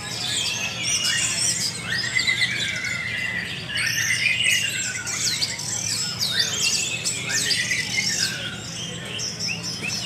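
Many caged orange-headed thrushes (anis merah) singing at once in a songbird contest: a dense, unbroken chorus of overlapping whistles, warbles and quick chirps, over a steady low hum.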